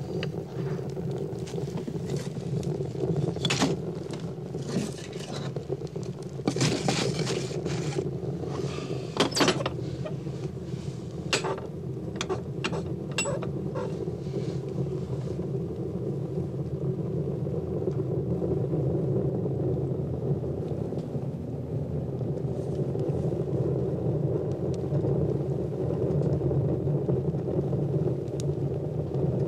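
Steady low rumbling drone, like a running engine, with scattered sharp clicks and crackles through the first half.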